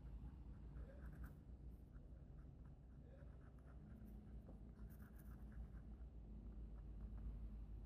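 Near silence: faint low room hum with a few soft scratches and light clicks, as of small parts being handled.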